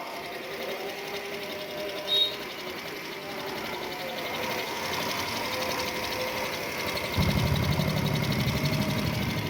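Hero Pleasure Plus FI scooter's small single-cylinder engine running steadily through its silencer, which has a piston gudgeon pin and aluminium packing welded inside to quieten a loud exhaust. A short click comes about two seconds in, and about seven seconds in the sound turns louder and deeper.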